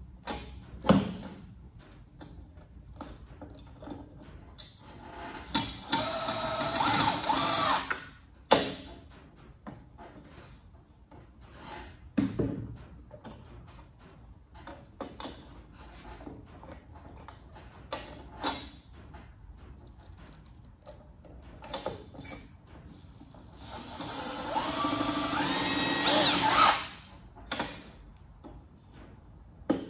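Cordless drill running in two bursts of two to three seconds each, its motor pitch climbing in steps as it speeds up. Sharp knocks and handling clicks come in between.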